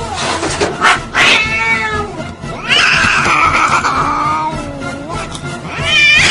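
A cat meowing and yowling: a short wavering meow about a second in, then a long drawn-out yowl that bends up and down in pitch, and a rising call near the end.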